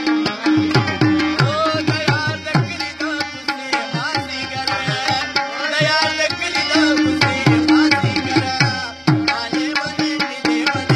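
Live Pashto folk music: a tabla plays a quick, steady rhythm, its deep bass strokes sliding down in pitch, under a harmonium and a rabab carrying the melody.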